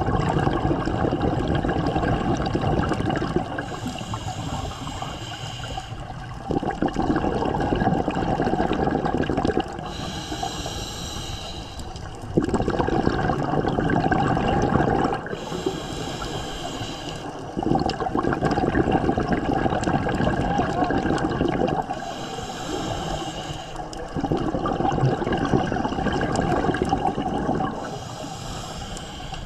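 Scuba diver breathing through a regulator underwater: a quieter hissing inhale alternating with a louder rumbling rush of exhaled bubbles, about five breaths, one every five or six seconds.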